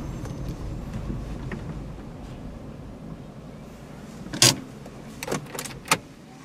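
Low hum of a car engine heard from inside the cabin as the car creeps along, fading after about two seconds, followed by a few sharp clicks, the loudest about four and a half seconds in.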